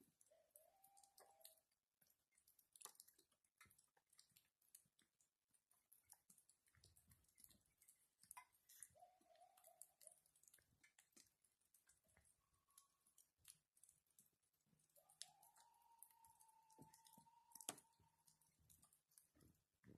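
Faint, distant howl-like animal calls, coyote-like: a short rising call near the start, another about nine seconds in, and a long call about fifteen seconds in that rises and then holds one pitch for about three seconds. Scattered faint clicks are heard as well.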